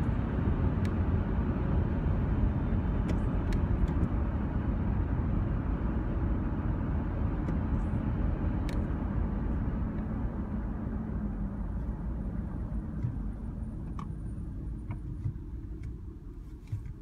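Steady road and engine noise heard inside a moving car, fading as the car slows to a stop near the end.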